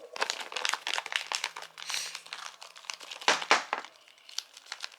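Irregular crinkling and crackling of plastic as a toy's slime pack is dumped out and picked through by hand, with a few louder crackles past the middle.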